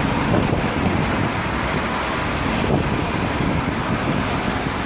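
Steady street traffic noise, a constant rumble with no distinct events standing out.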